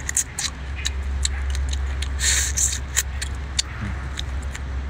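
Close-up eating sounds of a cooked shrimp being sucked on and its shell cracked and peeled by hand: many small sharp clicks and crackles, with a brief hissing slurp about two seconds in, over a steady low rumble.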